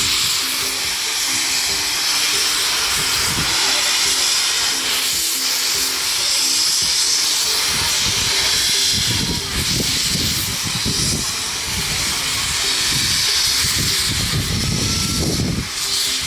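Steam locomotive letting off steam: a loud, steady hiss, with irregular low rumbles in the second half.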